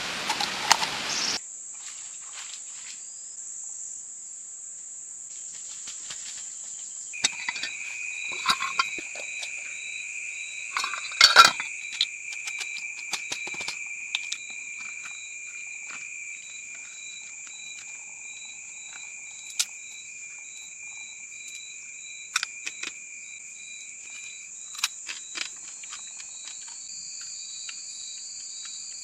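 Insects trilling in a steady high-pitched chorus: one constant shrill tone, a lower steady trill joining about seven seconds in, and a pulsing call repeating between them. Scattered sharp clicks and knocks sound over it, the loudest a cluster about eleven seconds in.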